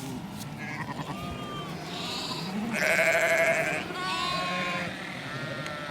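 Sheep bleating, several calls overlapping, with the loudest, wavering call about three seconds in.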